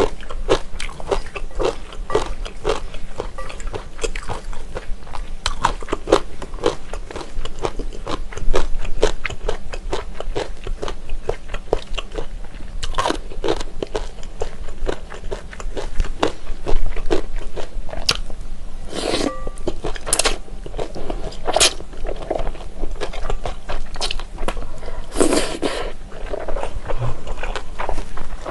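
Close-miked chewing of wide, slippery Chinese glass noodles in an oily spicy sauce: rapid wet smacking clicks, then a few longer slurping sounds in the second half.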